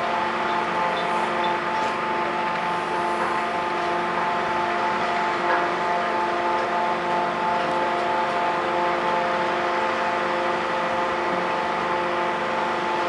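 Screw pile rig running steadily under load while it drives a spun concrete pile: a continuous engine-and-hydraulic drone with several steady whining tones, with no change in pace. The power head is pressing the pile down slowly.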